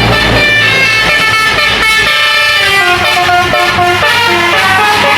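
Indonesian bus's multi-tone musical horn (telolet-type) playing a quick tune of short stepped notes, over the bus's engine rumble, which drops away about two seconds in.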